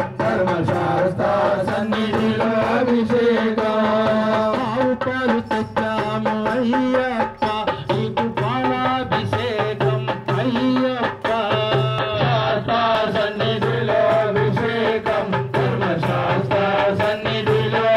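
Amplified devotional singing, a bhajan sung into a microphone, over a steady hand-drum rhythm.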